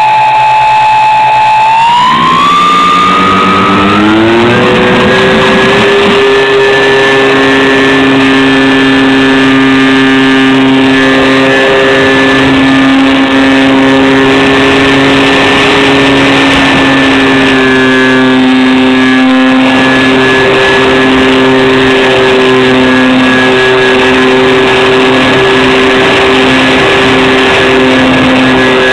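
Twin battery-powered electric motors and propellers of a home-made RC plane spooling up in steps over the first few seconds, then running at a steady, loud whine. Their pitch shifts slightly now and then with the throttle, most clearly a little over halfway through.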